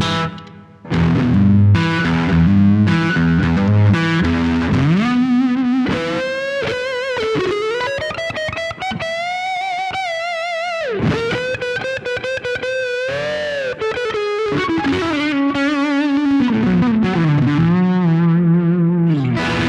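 Overdriven electric guitar on its neck humbucker. It plays rhythmic chords for the first few seconds, with a brief drop-out just after the start, then a sustained single-note lead with bends, slides and wide vibrato, sliding down and ringing out at the end.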